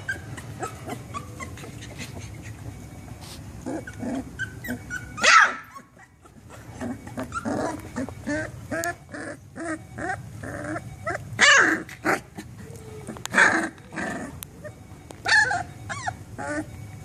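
Three-week-old chocolate Labrador Retriever puppy growling and yipping in play: a string of small growls and squeaky yips with a few sharper barks, the loudest about five, eleven, thirteen and fifteen seconds in.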